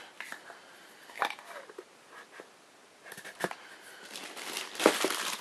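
Packaging being handled: a few scattered clicks and taps, then louder crinkling near the end with one sharp snap.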